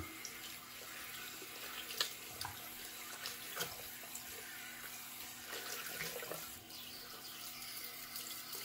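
Sink tap running a steady stream of warm water, with a couple of faint clicks a few seconds in.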